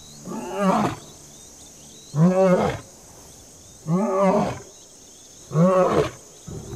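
Male lion roaring: four loud calls about a second and a half apart, each rising then falling in pitch.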